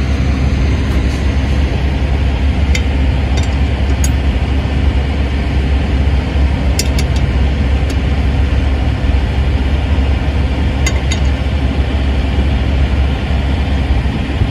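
Steady low vehicle rumble, with a handful of light metallic clinks from lug nuts and the lug wrench as the spare wheel's nuts are worked on.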